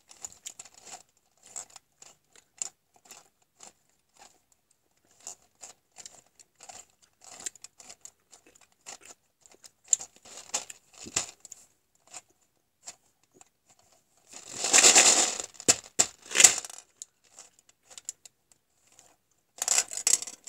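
A small toy gumball machine being handled: light plastic clicks and gumballs shifting in the globe. There is a louder rattling burst about fifteen seconds in and another near the end.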